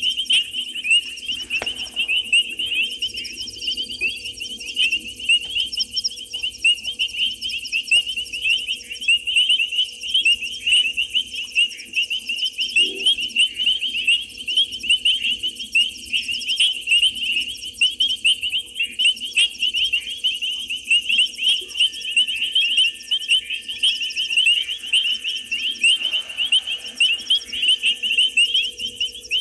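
Dense night chorus of calling frogs and insects at a waterhole: rapid, overlapping high-pitched chirps that never let up, with a faint steady low hum underneath.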